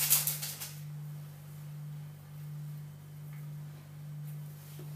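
A steady low hum that swells and fades gently about once a second. In the first half-second comes a brief burst of paper rustling and clicks as baking parchment and cookie dough are handled.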